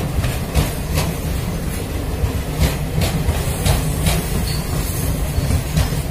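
Indian Railways passenger coaches rolling past, with a steady low rumble and wheels clicking irregularly over rail joints, a few clicks a second.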